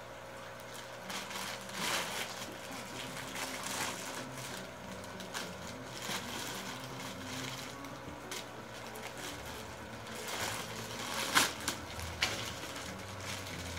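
Clear plastic bags crinkling and rustling as they are handled and opened, in scattered crackles with a sharper one about eleven seconds in.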